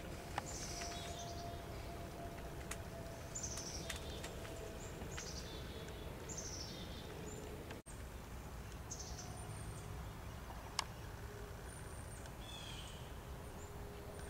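Woodland songbirds calling: a run of short, high chirps that fall in pitch, about one a second, over quiet background noise. A faint steady hum sits under the first few seconds, and the sound cuts out for an instant about halfway through.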